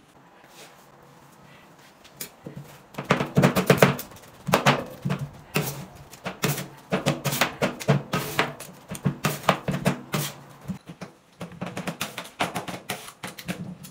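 Background music with a percussive beat, quiet at first and starting in about two and a half seconds in.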